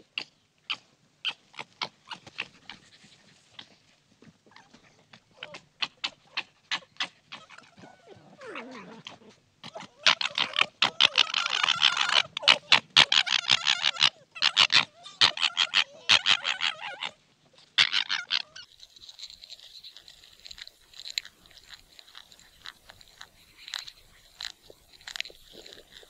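Fennec fox chewing a piece of carrot: sharp separate crunches at first, then dense, fast crunching from about ten seconds in until about seventeen seconds. Near the end the crunching stops and gives way to a faint steady high-pitched tone with occasional ticks.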